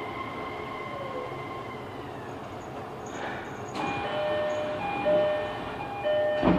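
Inside a Kobe City Subway 6000-series train: the Hitachi hybrid-SiC inverter and traction motors give a steady high whine with a short falling tone, which fades out about two seconds in. From about four seconds in, a repeating two-tone electronic chime sounds, and a sharp clunk comes near the end.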